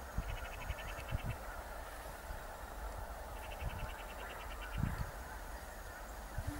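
A large flock of wild geese calling in flight, a steady mass of overlapping calls, with twice a short run of rapid higher notes standing out. Wind rumbles on the microphone.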